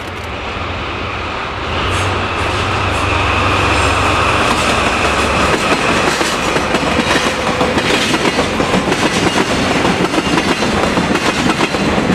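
DD51 diesel-hydraulic freight locomotive passing close, its twin V12 diesel engines droning low, followed by a string of Taki tank wagons. After about six seconds the engine drone gives way to the rhythmic clickety-clack of the wagons' wheels over the rail joints.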